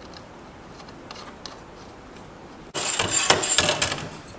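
Cordless DeWalt impact driver sending a mounting screw through a metal base plate into plywood: it starts suddenly about two-thirds of the way in and hammers with a rapid rattle for about a second and a half. Before that there are only a few faint clicks.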